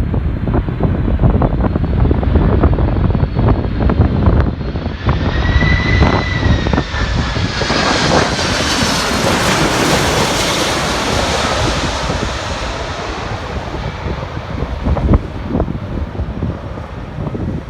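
Jet airliner passing close by, its engine whine falling in pitch as it goes past and its noise loudest about halfway through. Strong wind buffets the microphone throughout.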